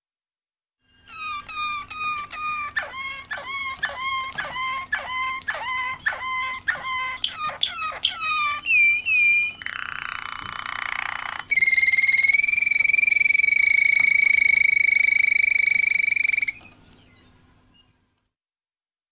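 Malinois Waterslager canary singing: a run of quick repeated notes, each dropping in pitch, two to three a second, then a short bubbling passage, then one long steady whistled note held for about five seconds that stops abruptly.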